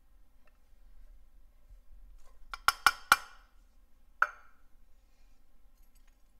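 Stainless steel measuring cup knocked against a stainless saucepan to empty the diced onion into it: four sharp clinks in quick succession, then a single clink about a second later.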